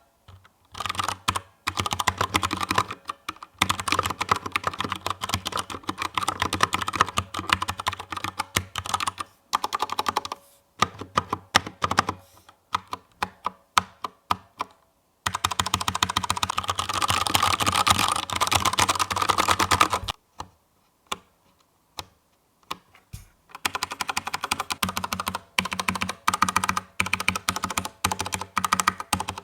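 Typing on a DURGOD Fusion wireless mechanical keyboard with Cherry MX Brown switches: fast, dense runs of keystrokes, slowing to separate single presses about a third of the way through, then fast again. There is a brief lull with only a few presses about two-thirds of the way through.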